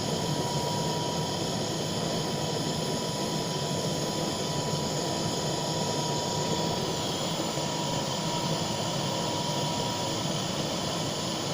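Butane blowtorch flame burning steadily with an even hiss and a thin steady whistle, heating molten silver solder in a graphite mould.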